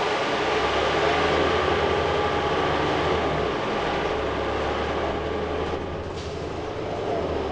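Interior noise of a 2008 Orion VII NG CNG transit bus under way: its Cummins ISL-G inline-six natural-gas engine running with a steady low hum beneath road and tyre noise. The low engine tone dips briefly about halfway through.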